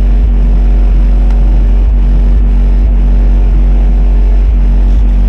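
Car audio subwoofer system playing a sustained deep bass tone at full power for an SPL measurement, metering around 150 dB. The low note is very loud and holds steady.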